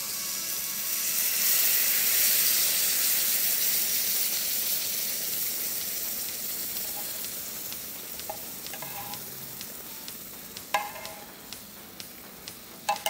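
Creamy mushroom sauce sizzling as it is poured into a preheated cast-iron skillet, loudest about two seconds in and dying away. A few clinks of a metal spoon against the pans near the end.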